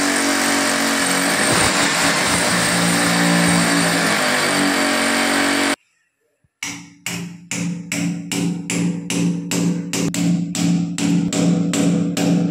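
Electric hammer drill boring a 16 mm hole into a masonry wall, running steadily with a continuous grinding noise, until it cuts off abruptly about six seconds in. Under a second later a hand hammer starts striking a metal wall-fastener anchor bolt into the drilled hole, a steady run of ringing blows about two to three a second.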